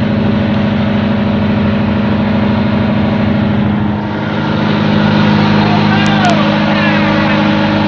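A fishing boat's engine running steadily, a loud, even drone that holds one pitch.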